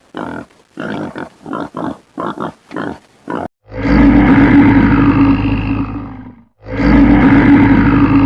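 Animal-like calls: about a dozen short grunts over the first three and a half seconds, then two long, loud roars, the first lasting nearly three seconds and the second under two.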